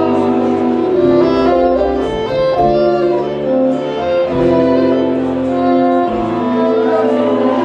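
Acoustic folk string band playing live, with fiddles carrying long held notes over a low bass line.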